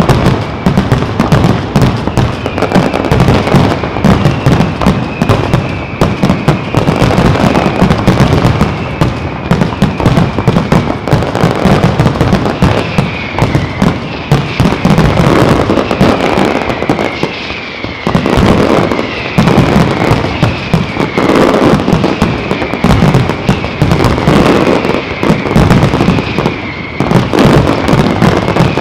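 Aerial fireworks going off in a dense, continuous barrage of bangs and crackles. In the second half a high whistling tone slides down again and again above the blasts.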